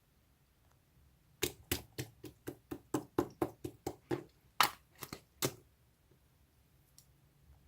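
Slime being squeezed and pressed, making a quick run of sharp, sticky pops and clicks, about four a second, that slows and stops after about four seconds.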